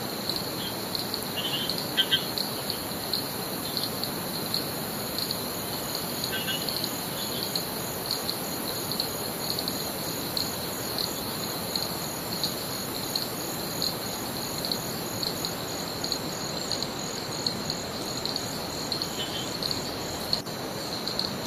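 Tropical insects calling in a steady, high, pulsing trill over a continuous even hiss of rushing river water, with a few short bird chirps about two seconds in, near seven seconds and near the end.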